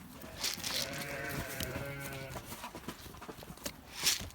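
A sheep bleating once: a single drawn-out call of about two seconds. Short rustling noises come just before it and near the end.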